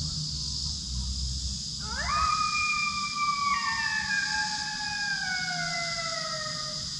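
Coyote howl: one long call about two seconds in that swoops up, holds, then drops a step and slides slowly down for several seconds. The tail of an earlier call fades out just at the start.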